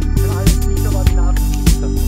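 Background music: a steady beat of about two a second over held low tones.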